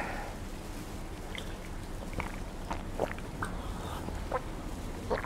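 Soft mouth sounds of eating and drinking: a handful of short, scattered clicks and smacks as a person chews and sips from a small cup.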